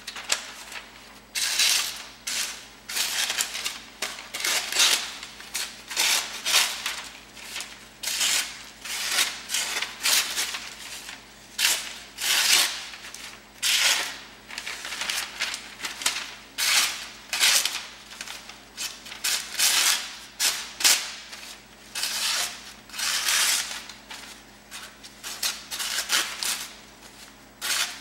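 Swamp Rat Rodent Solution knife blade slicing through thin phone book paper, a papery rasp with each stroke, one or two a second, with the rustle of the pages being handled. The slices are a sharpness check on the edge after it has cut four lengths of sisal rope.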